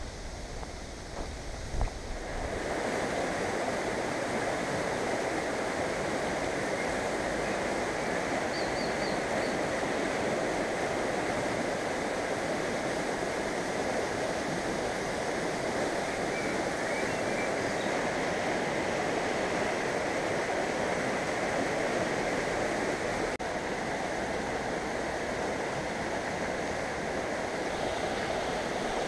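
A shallow river rushing over rocks in a fast riffle: a steady, dense rush that sets in suddenly about two seconds in. Before it comes a low rumble of wind on the microphone and a single knock.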